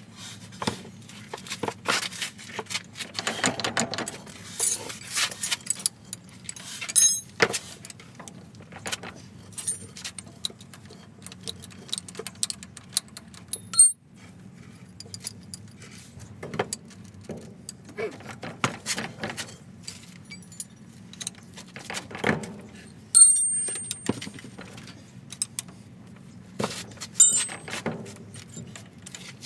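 Metal tools and parts clinking, knocking and clanking in irregular, uneven strikes, some ringing briefly, over a steady low hum.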